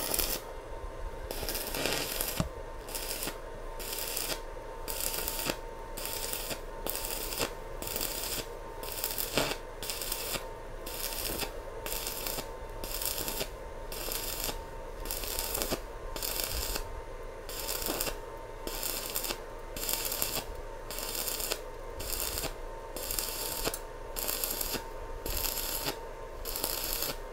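Stick (MMA) welding arc crackling and hissing on thin sheet steel, swelling and easing in a regular pulse about three times every two seconds, with a faint steady tone underneath.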